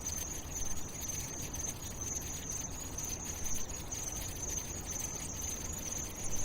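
A steady, high-pitched, insect-like trill over low rumbling noise and light crackle: an ambient intro bed between songs, with no music yet.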